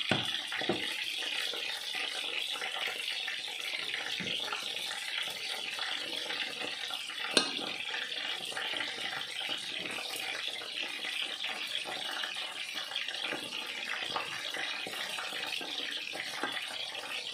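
Hot oil sizzling steadily as battered potato strips and calamari rings deep-fry, with a single sharp click about seven seconds in.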